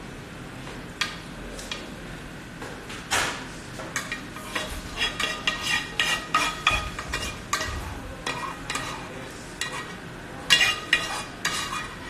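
Metal spoon scraping and clinking against a frying pan while lentils are scooped out onto a plate: a few scattered knocks, then a quick run of short scrapes and clinks, loudest near the end.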